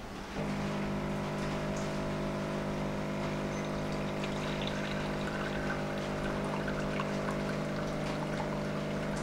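Home espresso machine's pump switching on about half a second in and running with a steady hum while espresso trickles into a glass: a shot being pulled.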